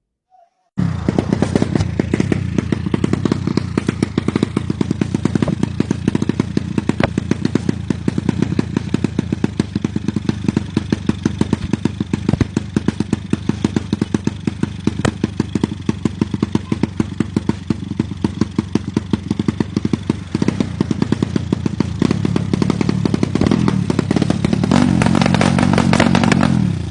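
Racing motorcycle engine running loudly with a rapid, even clatter of firing strokes, starting abruptly about a second in. Near the end a higher tone swells for a few seconds before the sound cuts off suddenly.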